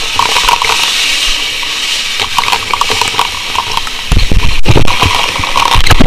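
Fire hose nozzle spraying a steady hissing jet of water, with scattered crackles. About four seconds in, loud low rumbling thuds take over for about a second, with another just before the end.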